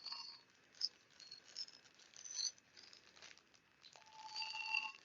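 Faint rattling and a few light clicks as a packaged wooden utensil set is handled and unwrapped.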